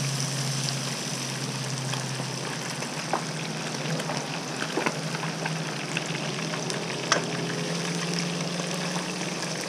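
Hot oil sizzling and crackling as one pan deep-fries and another sautés minced garlic, stirred with a wooden spoon. A few sharp pops stand out, over a steady low hum.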